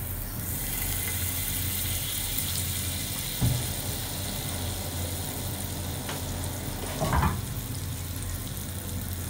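A tablespoon of butter melting and sizzling gently in a hot nonstick frying pan, a steady hiss over a low hum, with two soft knocks about three and seven seconds in.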